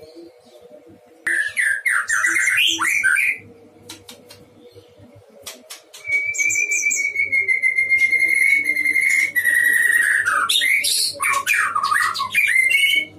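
Male white-rumped shama (murai batu) in full song. About a second in comes a burst of rich, varied warbling, then a pause with a few sharp ticks. Then a long steady whistle held for about three seconds under high chips, breaking into fast varied phrases near the end.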